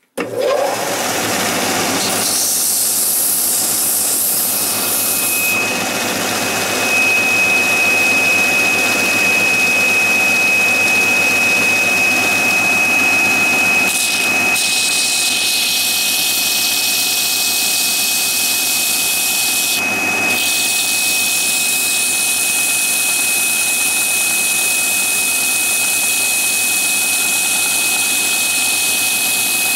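Belt sander switched on and running steadily, sanding a small wooden wheel pressed against the moving belt. A steady high whine joins about four or five seconds in.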